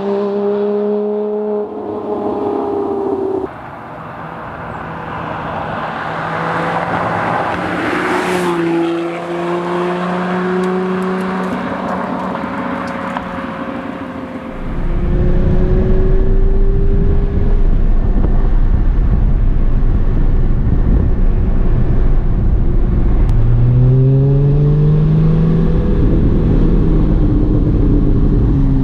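Porsche GT4's flat-six through a valved exhaust with catted headers. A valves-open drive-by fades away in the first few seconds, and a valves-closed drive-by builds and passes about eight seconds in. From about fifteen seconds it is heard from inside the cabin with the valves open: a steady deep rumble, then the revs rise and fall again near the end.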